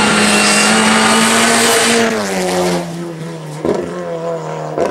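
Audi RS3 TCR race car's turbocharged four-cylinder engine held at high revs on a hillclimb, then, about two seconds in, heard farther off at a lower pitch, with two sharp breaks near the end as it changes gear.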